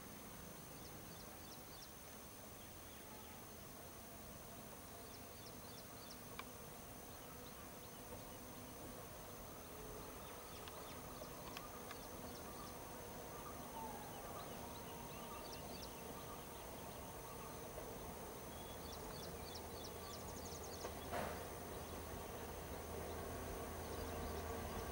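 Insects chirping in short ticking bursts over a steady high buzz. From about 19 s on, the low rumble of an approaching EMD WDP4D diesel locomotive grows louder.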